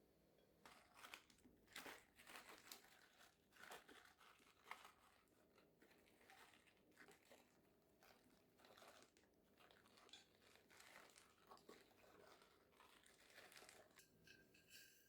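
Faint, irregular crinkling and rustling of something being handled by hand, as a run of short rustles that stops shortly before the end.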